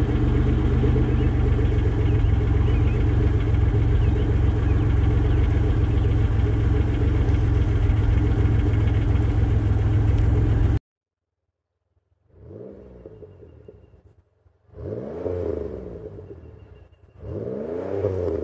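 1998 Chevrolet Lumina LTZ's V6 idling steadily through Cherry Bomb glasspack mufflers, heard right at the tailpipe. After a sudden second of silence, the engine note climbs and falls three times as the car is revved on the road, each swell louder than the last.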